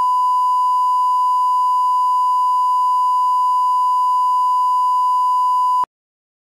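Steady 1 kHz line-up tone, the reference test tone that plays with colour bars. It holds one unchanging pitch and cuts off abruptly near the end.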